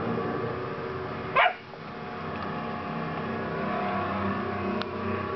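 An Old English Sheepdog puppy gives a single short, high bark about a second and a half in, over a steady background hum.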